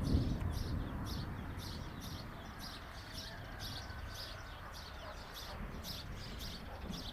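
Thunder rumbling low and dying away over the first second or so. Short high chirps repeat about twice a second over it.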